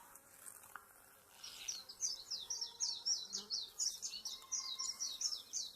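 A rapid run of short, high chirps, about five or six a second, starting about one and a half seconds in and running on, from a small animal calling.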